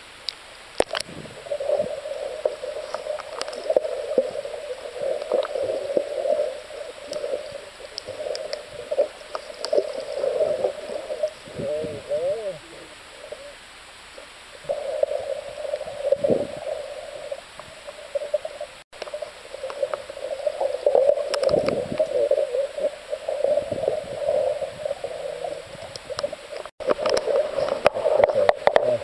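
Muffled underwater sound of a swimming pool picked up by a submerged camera: water sloshing and bubbling against the camera with a wobbling, gurgling tone and scattered clicks as swimmers move around it.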